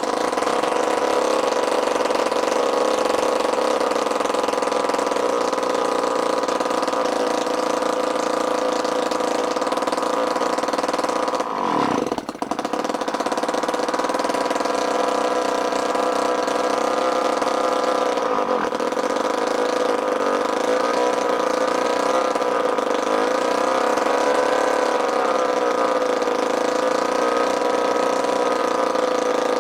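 1930s Stuart Turner 29.9 cc water-cooled petrol engine starting and running on choke with a steady, high-pitched note. About twelve seconds in its pitch drops sharply and then picks back up. Later the speed wavers slightly.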